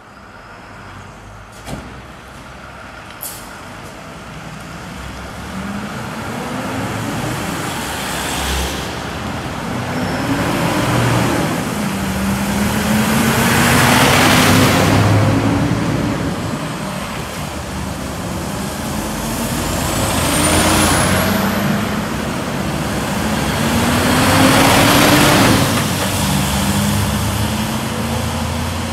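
Fire engines pulling out one after another, the pitch of their truck engines rising as each accelerates away and passes by in a series of loud swells. There are two short sharp sounds near the start.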